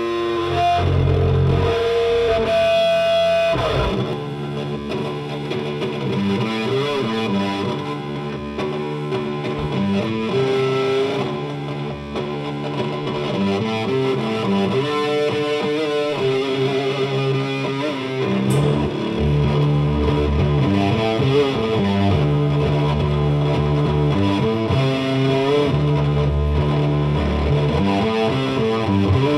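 Stoner/sludge metal band playing live, led by heavily distorted electric guitar. It opens with held, ringing notes, and a riff starts about four seconds in and carries on.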